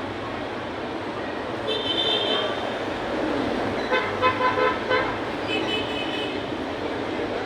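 Vehicle horns honking over steady street traffic noise: one high horn sounds about two seconds in, then a burst of four or five short beeps midway, and another brief horn after that.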